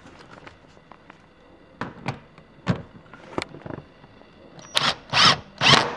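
A few sharp metal clicks as the socket and bolt are set on the seat rail, then a cordless drill with a socket extension runs in three short bursts, spinning a 16 mm seat bolt in without tightening it.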